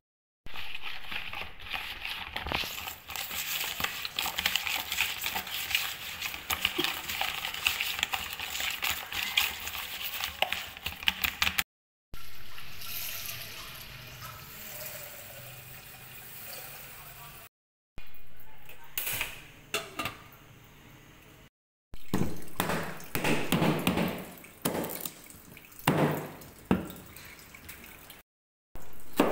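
Dense crackling handling noise at a plastic basin where raw frog is being seasoned. Then tap water pouring into a stainless steel pot as a steady hiss. Then a cleaver striking lemongrass stalks on a wooden chopping board in a run of sharp chops.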